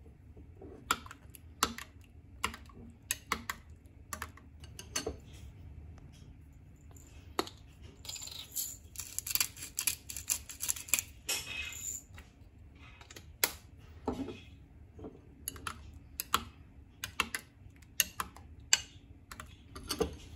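Scattered sharp clicks of a metal spoon against a glass bowl of chopped tomatoes. About eight seconds in comes a run of dense crackling lasting some four seconds: a hand pepper grinder grinding black peppercorns.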